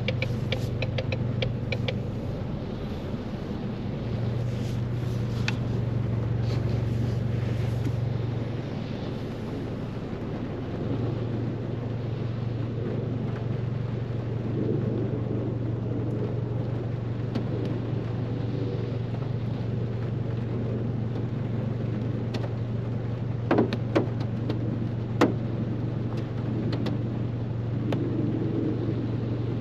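Ford Mustang driving on a rain-wet road: a steady low engine drone over tyre and road noise. Three sharp clicks or knocks come about three-quarters of the way through.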